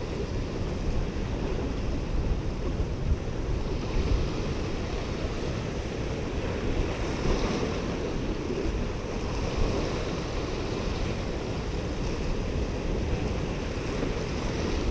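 Waves washing and breaking against the granite rocks of a jetty, a steady surf with wind rumbling on the microphone.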